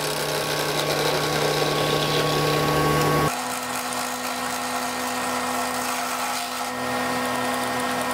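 Sieg C3 7x14 mini metal lathe running under a facing cut, a carbide insert taking metal off the end of a bar held against a half dead centre. A steady machine whine with several fixed tones, whose pitch pattern changes about three seconds in.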